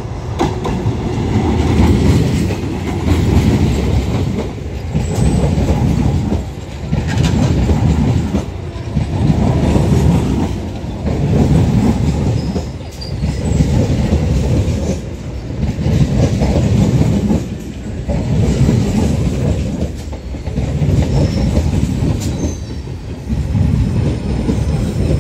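Electric multiple-unit local train running past along the platform close by: a heavy rumble of wheels on rail that swells and fades in a steady beat about every two seconds as the coaches go by.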